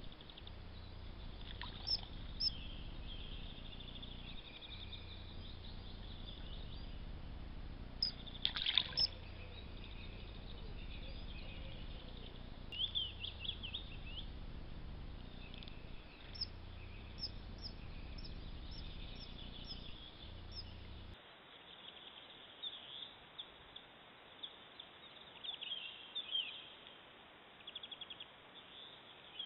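Wild songbirds chirping and trilling over a low, steady rush of running stream water. About two-thirds of the way through, the water noise drops away abruptly and the birdsong continues.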